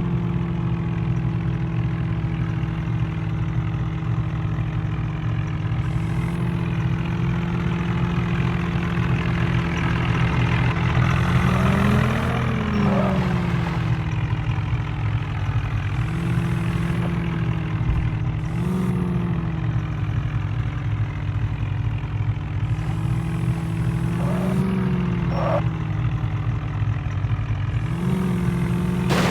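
A motor vehicle engine running steadily, revving up briefly several times, about five short rises in pitch across the stretch.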